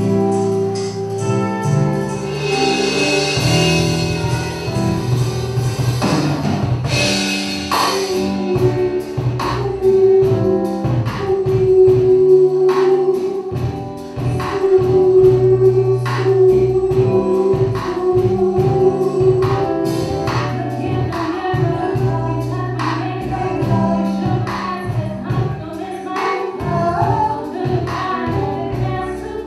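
A live band playing, with a woman singing lead and holding long notes over keyboards, guitar and drums. The drums settle into a steady beat about eight seconds in.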